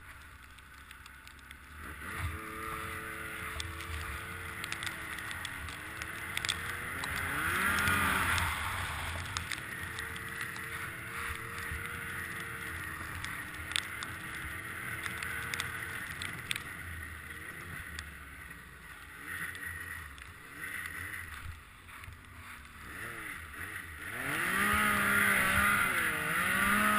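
Yamaha RS Rage snowmobile's four-stroke three-cylinder engine running under load through deep snow, its pitch rising and falling with the throttle. It swells about a quarter of the way in and is loudest near the end as the sled climbs a steep hill, with a few knocks from the sled over bumps.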